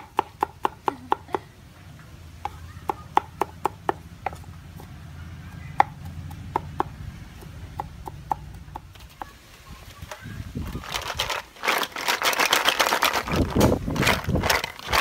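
Knife chopping garlic on a wooden chopping block: quick strokes at first, then slower, separate chops. A louder stretch of rattling and crackling follows about ten seconds in.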